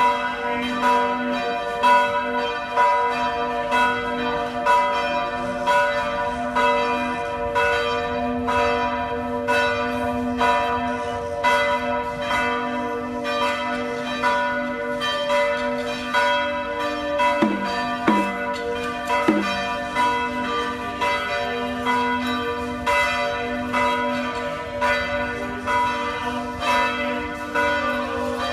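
Church bells pealing: several bells struck in quick succession, several strikes a second, their tones ringing on over one another without a break.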